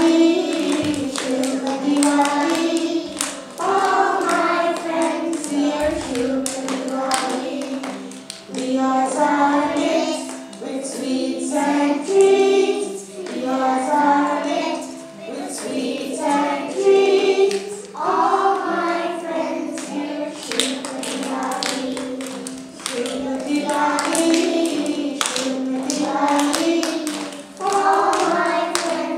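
Children's choir singing a Christmas song in phrases over musical accompaniment.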